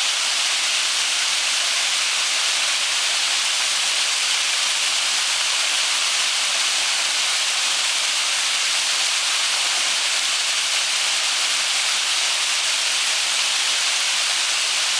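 Waterfall: water falling into a pool with a steady, unbroken rush, its hiss strongest high up.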